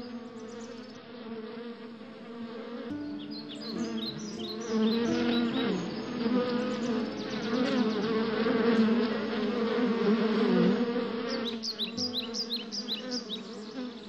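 Honeybees buzzing close up, a wavering hum that swells about four to five seconds in and drops away about eleven seconds in.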